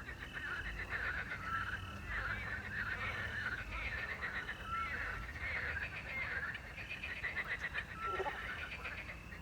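Frogs croaking in a dense chorus of rapid pulsing calls, with a small owl's short whistled note repeating about every three seconds.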